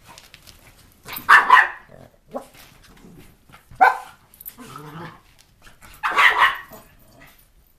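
Small Rat Terriers barking in short bursts while they play-fight, the loudest barks about a second in, four seconds in and six seconds in.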